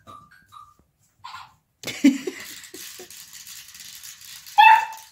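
Beagle puppy at play: a few short high whimpers, a thump and clatter about two seconds in, scattered clicks, then one loud high yip near the end.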